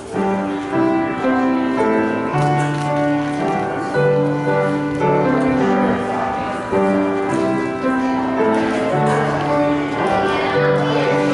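Upright piano playing a slow piece, a melody of held notes over a steady-moving bass line.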